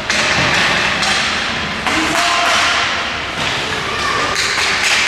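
Ice hockey play in a rink: a steady hiss with several sharp knocks and thuds from sticks, puck and boards, with a cluster of them near the end.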